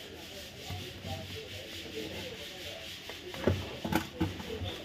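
Plastic casing of an Omron blood pressure monitor being handled and turned over on a newspaper-covered bench: rubbing and scraping, with a few sharp plastic knocks and clicks about three and a half to four seconds in.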